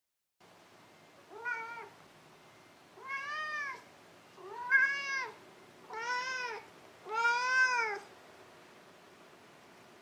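A cat meowing five times in a row, each meow rising and then falling in pitch. The first meow is short, the later ones longer and louder.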